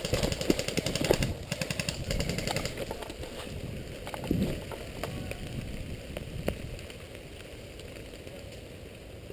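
Footsteps running through dry fallen leaves, with rustling and knocking of clothing and gear, busiest in the first couple of seconds and dying down to quiet rustling as the runner stops.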